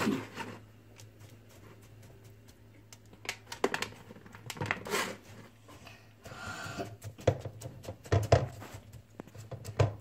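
Hands pressing a greasy mix of sunflower seeds and peanuts into a metal bundt tin: scattered rustling and light clicks of seeds against the tin, coming in short clusters.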